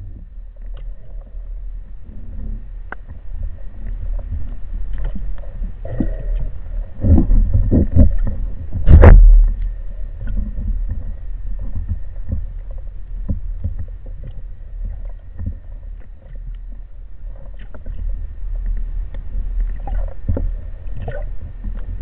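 Underwater noise picked up by a camera mounted on a speargun: a steady low rumble of water moving past the housing, with scattered knocks and clicks of handling. A louder cluster of knocks comes just before one loud, sharp thud about nine seconds in.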